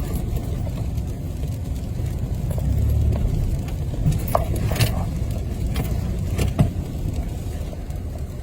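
Four-wheel-drive truck driving on an icy road: a steady low engine and road rumble, with a few sharp knocks and rattles in the middle.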